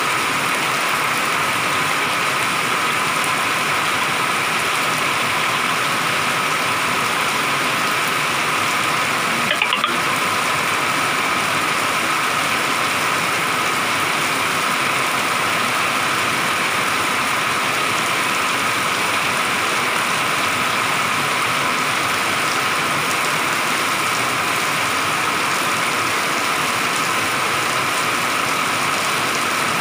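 Heavy rain pouring down, a dense, even hiss with a steady faint hum running under it.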